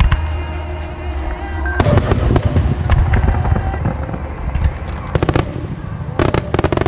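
Aerial fireworks shells bursting: a heavy low boom about two seconds in, then clusters of sharp crackling around five seconds and again near the end. Show music plays at the start.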